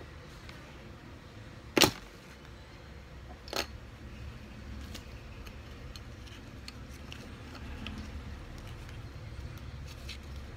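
Small plastic building bricks clicking and tapping against each other and the wooden table as they are handled, with one sharp click about two seconds in and a softer one a couple of seconds later, over a low steady hum.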